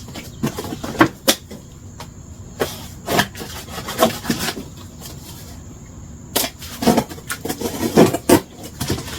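A cardboard shipping box being handled and opened: scattered knocks, scrapes and rubbing of cardboard, with a busier run of knocks and scrapes near the end.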